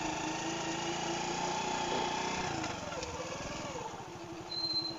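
The small single-cylinder engine of a mini Honda C70-style motorcycle, built from a 1994 Honda Grand, running steadily. About two seconds in its pitch drops and it settles to an uneven idle with separate firing pulses.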